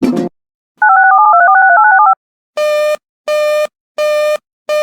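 Electronic signalling tones between two emergency alert messages. A short crackle comes first, then a rapid run of telephone keypad (DTMF) tones lasting about a second. From about halfway in, a buzzy beep repeats evenly, roughly every 0.7 s, four times.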